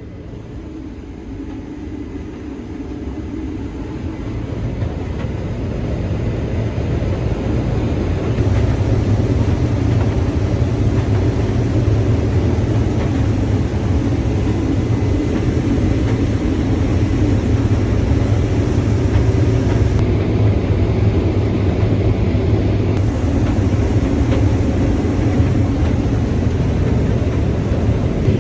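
Combine harvester running while harvesting corn: a steady low engine and machinery drone that grows louder over the first several seconds and then holds steady.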